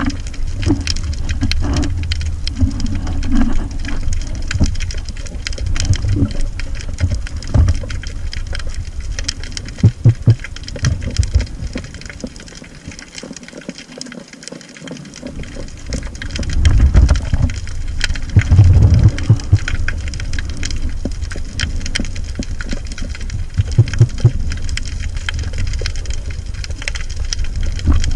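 Underwater sound picked up through the housing of a speargun-mounted camera: a low rumble of water moving past, with a handful of louder thumps, over a constant fine crackling of clicks. The rumble eases off for a few seconds near the middle.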